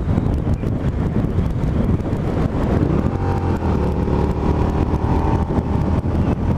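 Suzuki SV650S 645 cc V-twin motorcycle engine running on the move, with wind rushing over the microphone. A few seconds in, the engine note shifts as the revs change.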